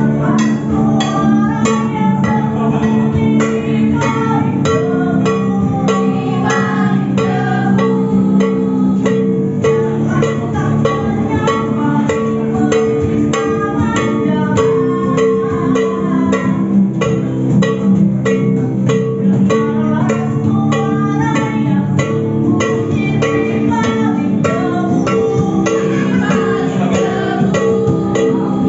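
Music played on plucked string instruments, a fast run of plucked notes over sustained low notes.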